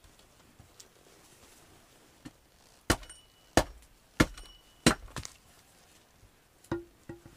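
Four sharp blows of a hand tool on wood, evenly paced about two-thirds of a second apart, with a short metallic ring after two of them; a few lighter knocks follow near the end.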